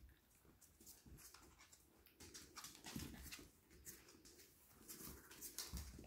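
Faint handling sounds of Yorkie puppies being petted: soft rustling and light scuffs, with a couple of low bumps about three seconds in and again near the end.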